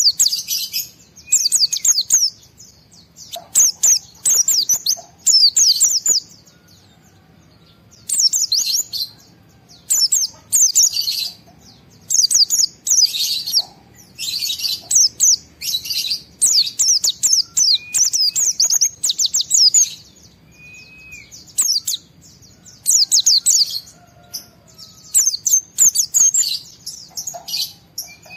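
White-eye singing in agitated, full-drive bursts of fast, high twittering, each burst a second or two long with short pauses between, and a few short whistled notes among them.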